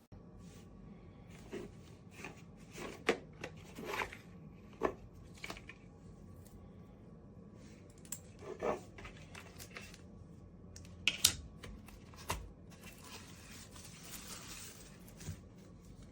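Scattered rustles, clicks and taps over a steady low hum, with a few sharper clicks and a short hiss near the end.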